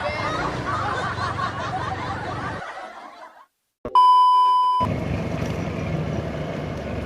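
Chuckling voices fade into a brief silence. Then a loud, steady electronic beep lasts about a second and cuts off sharply, followed by steady street and traffic noise.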